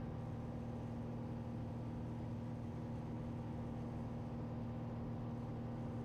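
Cabin drone of a 1968 Cessna Skylane 182L in cruise flight: its six-cylinder Continental O-470 engine and propeller running steadily, with one strong low tone held constant throughout.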